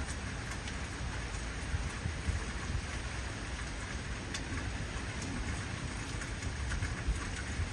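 Heavy rain falling steadily in a thunderstorm, with low rumbles of thunder swelling about two seconds in and again near the end.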